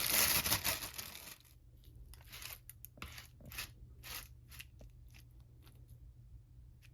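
Plastic film crinkling and tearing as it is peeled back from a microwaved frozen-meal tray, then a run of short scraping strokes from a utensil stirring the still partly frozen food.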